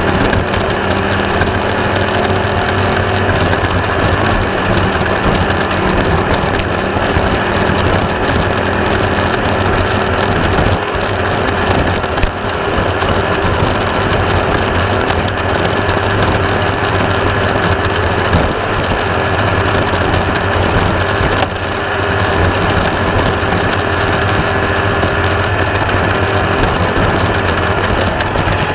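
Class 1/2-1600 desert race buggy at speed: its air-cooled VW 1600 flat-four running hard under a constant loud rattling of the car's chassis and parts.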